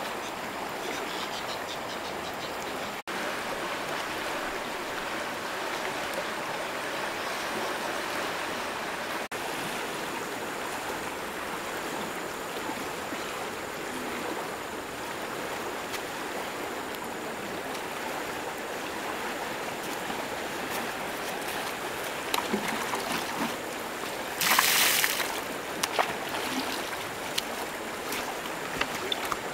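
Steady rushing of a fast-flowing river. Near the end come a few clicks and knocks and one short, louder burst of rushing noise.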